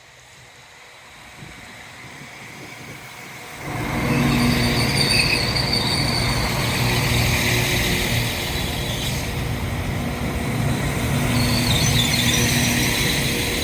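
Diesel train drawing into the station, growing louder until a sharp rise about four seconds in, then its engine running steadily under a broad rumble, with high-pitched squeals from the wheels on the rails.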